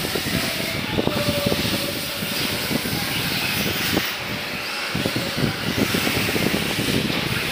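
1/8-scale electric RC buggies running on the race track: an even hiss of tyres, with many short clicks and knocks from the cars.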